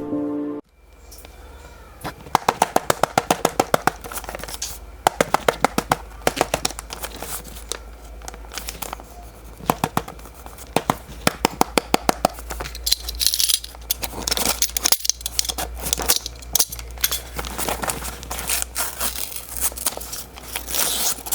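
Packaging being handled and opened: crinkling, tearing and scraping, with runs of rapid sharp clicks, over a steady low hum.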